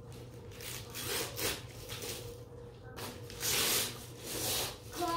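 Wrapping paper rustling and tearing in several short swishes as a present is unwrapped.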